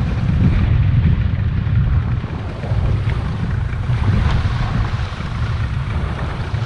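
Wind buffeting the microphone in a low, fluttering rumble, over the wash of shallow water around an inflatable dinghy's hull as it runs up onto a sandy beach.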